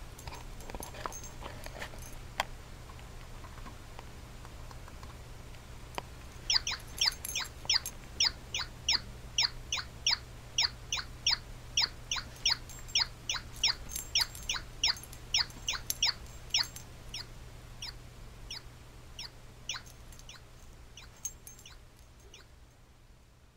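A pet animal making a long run of short, high squeaky chirps, about two to three a second, which thin out and fade toward the end, over a steady low hum.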